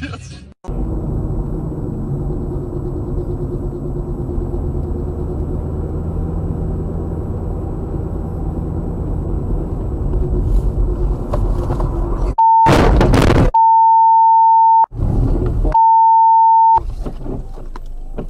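Engine and tyre rumble heard from inside a car driving on a snow-covered road. About twelve seconds in, two loud, harsh bursts of noise alternate with a loud, steady single-pitch beep, then the rumble goes on more quietly.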